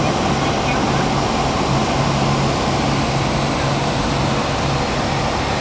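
Cessna 172 Skyhawk's piston engine and propeller running steadily in level flight, heard from inside the cockpit: a low hum with a slow, even throb under a steady hiss of airflow.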